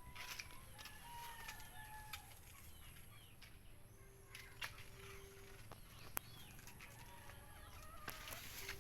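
Faint chicken calls, thin wavering notes and one longer held lower call about halfway through, with scattered sharp clicks and knocks.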